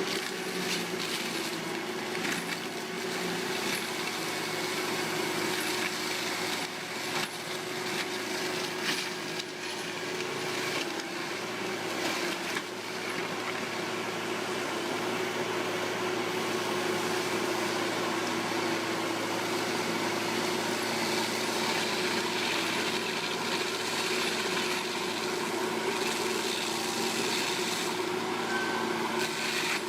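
Forestry mulcher running, a steady engine drone under a grinding noise. The noise is rough and uneven through the first half, then evens out.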